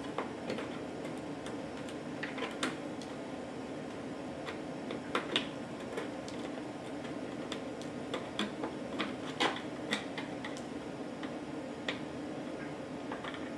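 Irregular light clicks and scrapes of a small screwdriver tip against the plastic back housing of a turbidimeter, clearing leftover knock-out material from its corner mounting holes, over a steady low hum.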